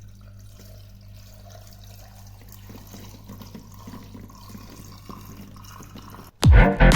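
Faint trickling water over a steady low electrical hum. Loud electronic music with a strong beat cuts in near the end.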